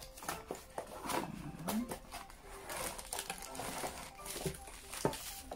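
A cardboard box being opened and a clear plastic bag crinkling as the flexible tripod inside it is handled and slid out, with scattered light clicks and taps.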